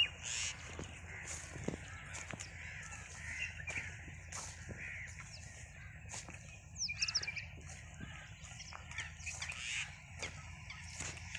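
Many birds calling at once in a dusk chorus, with crows cawing among dense overlapping chirps and short calls.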